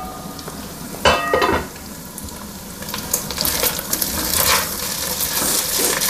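Cookware on a stove that has just come to the boil: a short clink of metal about a second in, then a steady sizzling hiss from about three seconds on.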